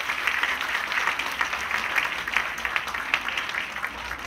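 Theatre audience applauding, many hands clapping in a dense, steady patter.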